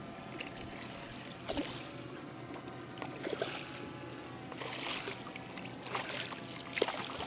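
Water splashing in several short bursts as a hooked striped bass thrashes at the surface beside the boat, the sharpest splash near the end.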